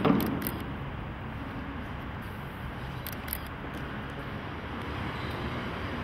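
Steady low rumble of a vehicle and road noise outdoors, opening with a sharp bang.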